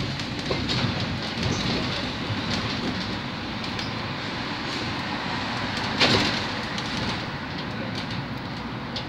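Inside a Škoda 31Tr electric trolleybus under way: steady road and tyre noise with the body and fittings rattling and clicking, and a louder jolt about six seconds in.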